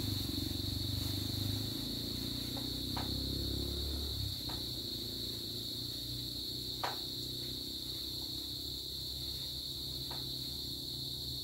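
Steady high-pitched drone of insects over a low rumble of distant traffic that fades out about four seconds in, with a few short sharp clicks.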